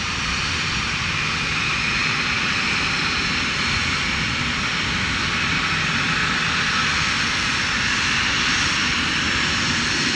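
Embraer Phenom 100 business jet's twin turbofan engines running at low thrust as the jet turns and lines up on the runway: a steady jet whine over a rushing hiss.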